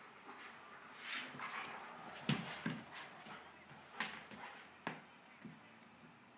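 A German shepherd and a cat tussling on a tile floor: irregular scuffling with a few sharp clicks and knocks, the loudest about two and four seconds in.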